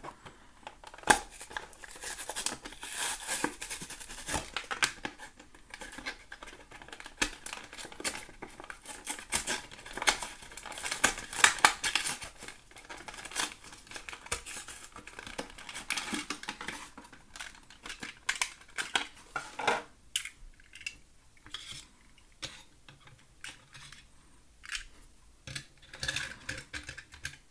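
Plastic blister packaging and its cardboard backing being handled and opened: dense crinkling, tearing and sharp clicks for most of the first twenty seconds, then sparser clicks and rustles.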